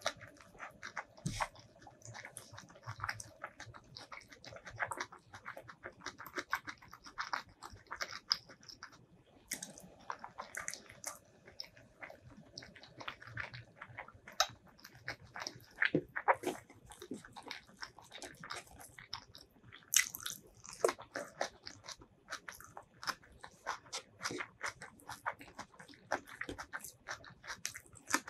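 Close-miked chewing of white rice and curried boiled egg eaten by hand, with many quick mouth clicks.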